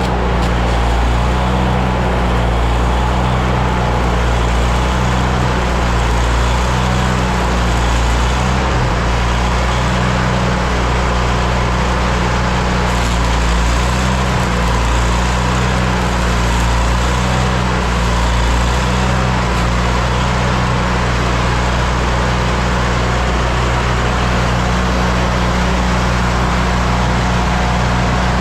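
An engine running steadily at constant speed, with a low, even hum.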